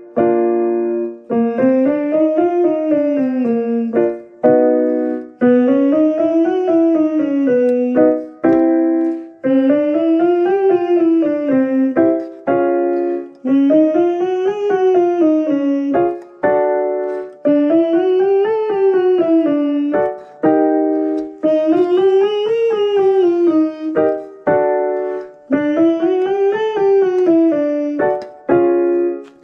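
Keyboard piano accompaniment for a humming warm-up: a short rising-and-falling note pattern played, then hummed back on a smooth slide up and down, repeating about every four seconds and each round a little higher.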